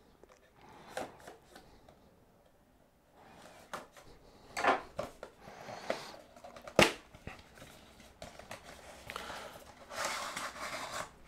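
Cardboard product box being handled and opened: scattered rustles and scrapes of card, one sharp tap about two-thirds of the way in, and a longer sliding rustle near the end as the lid comes off.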